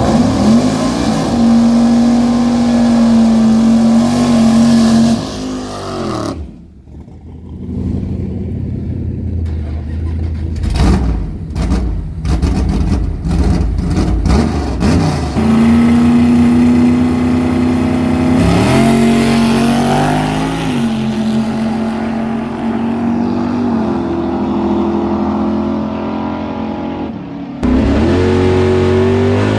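Dodge Dart's 440 big-block V8 running, held at steady revs, with the revs dropping about six seconds in. A run of knocks follows. The engine comes back at steady revs, rising briefly partway through and stepping up near the end.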